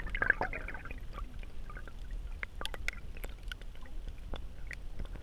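Water gurgling and sloshing around a camera held just under the surface. There is a bubbly burst in the first second, then scattered small clicks and pops over a steady low rumble.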